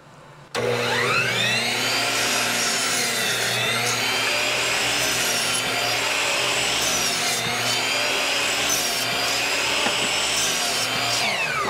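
Ridgid 12-inch sliding compound miter saw starting about half a second in with a rising whine, then running steadily as it cuts through a 2x4 with only slight dips in pitch under load. Running off a battery power station, it neither slows nor stalls. Near the end it is switched off and winds down with a falling whine.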